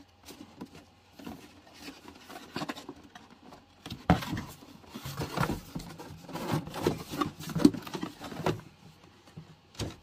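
Cardboard packaging being handled: irregular rustling and scraping with light knocks as the box's cardboard insert is moved and lifted, busier and louder from about four seconds in.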